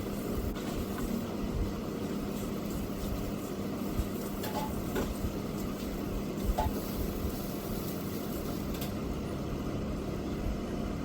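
Steady low hum and rumble with a constant tone and a few faint ticks.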